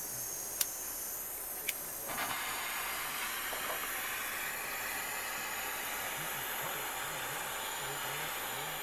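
Jeweller's gas soldering torch: two sharp clicks, then about two seconds in the hiss grows fuller and runs steadily as the flame heats silver so the solder paste flows.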